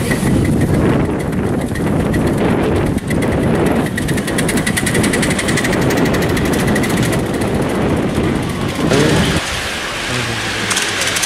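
A miniature railway train with passengers running past along the track: a rumble with rapid, regular clicking. About nine seconds in, the rumble falls away and a steady hiss is left.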